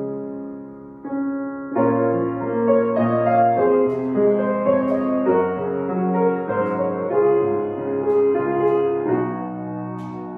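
Solo grand piano playing a slow, gentle piece of held chords; it grows fuller and louder about two seconds in and softens again near the end.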